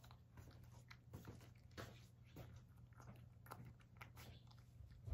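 Cat eating carrot mixed with bonito flakes from a ceramic bowl: faint, irregular chewing and mouth clicks.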